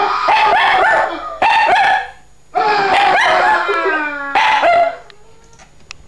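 Dog howling and yowling in several stretches, its pitch sliding up and down, falling quiet about five seconds in.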